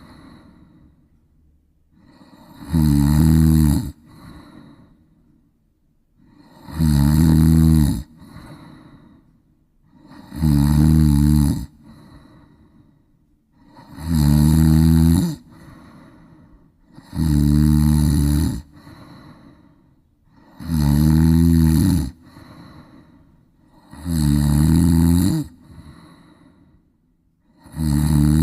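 Cat snoring in its sleep: eight loud, low snores, one about every three and a half seconds and each lasting over a second, with softer breathing between them.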